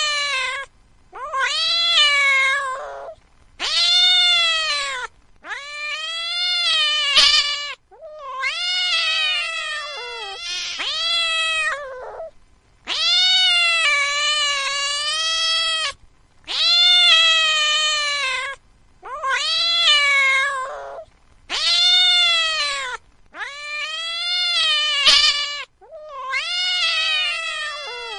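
Cat yowling: a string of long, drawn-out meows, each rising then falling in pitch, one after another with short pauses between them.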